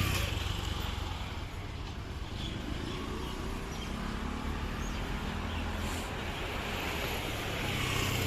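City road traffic: a steady rumble of vehicle engines and tyre noise, with vehicles passing close by near the start, in the middle and near the end.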